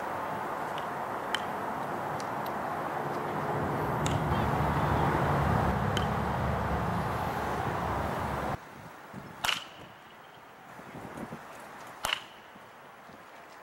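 A metal baseball bat striking balls in a series of sharp hits a few seconds apart. The last two are the loudest and ring briefly. A steady rushing background noise under the first hits stops abruptly about eight and a half seconds in.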